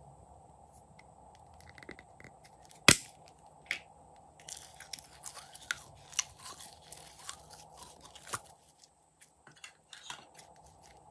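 A sharp plastic click as the lid comes off a small jar of gold glitter slime, then a run of sticky crackling and snapping as the slime is pulled out of the jar.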